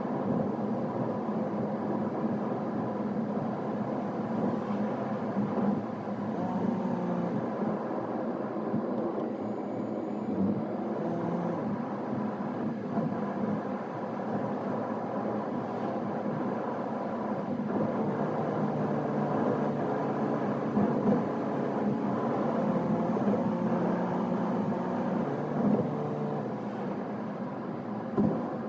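A car driving, heard from inside the cabin: steady engine and tyre noise, with a hum whose pitch shifts up and down in steps.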